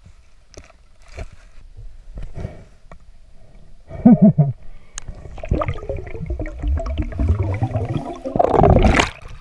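Muffled underwater sound picked up by a diver's camera: a few faint clicks at first, then from about four seconds in louder wavering, bubbling sounds from the diver's breath and movement. A loud rush of water and bubbles comes near the end.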